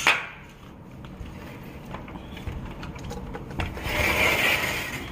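A sliding glass balcony door worked by its handle: a sharp click right at the start, a few faint ticks, and then the door rubbing along its track for about a second near the end.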